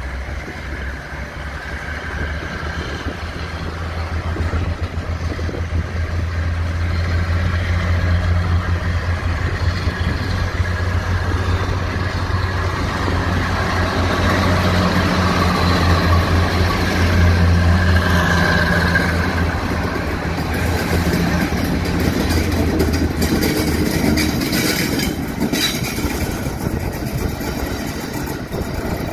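Diesel locomotives passing: a steady low engine drone that grows louder over the first several seconds, stays loud through the middle and fades in the last third.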